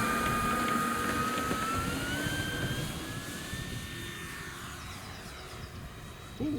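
Electric brushless motor and propeller of a 3D-printed P-47 Thunderbolt RC model plane whining. Its pitch rises steadily over the first few seconds, then the sound fades away.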